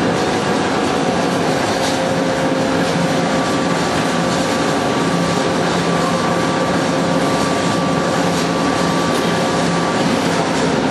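XGJ550 wood sawdust pellet mill running under load, turning out wood pellets: a loud, steady mechanical din with a constant low hum and a fainter higher whine.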